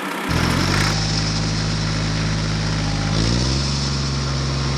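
Engine running steadily, cutting in suddenly just after the start, with a shift in its pitch about three seconds in.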